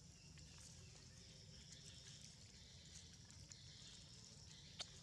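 Near silence: faint outdoor ambience with a steady high hiss and a few soft clicks, and one sharper click near the end.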